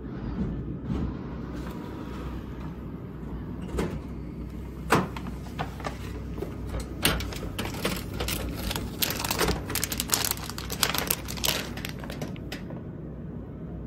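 A vending machine's pickup flap being pushed open and a plastic snack packet taken out: a couple of sharp knocks about four and five seconds in, then a long run of crinkling and rustling as the packet is handled, over a steady low hum.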